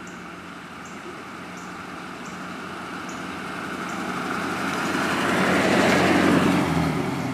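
Packard Darrin convertible driving slowly toward and past, its engine running low and steady, growing louder to a peak about six seconds in and then fading as it goes by.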